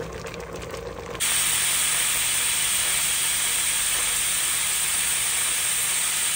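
Pressure cooker at full pressure, steam hissing steadily out past its weighted valve. The hiss starts suddenly about a second in.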